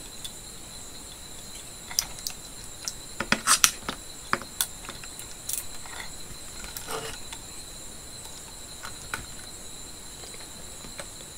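Scattered light clicks and taps of a screwdriver and wires being handled inside an inverter's metal case, with a short cluster of sharper clicks about three and a half seconds in. A steady high-pitched whine runs underneath.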